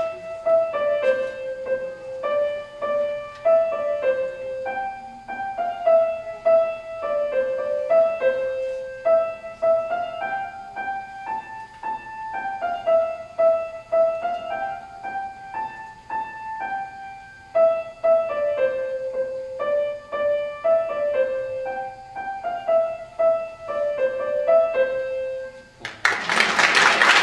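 Grand piano playing a short melody, one note at a time in the middle register. Near the end the playing stops and applause breaks out.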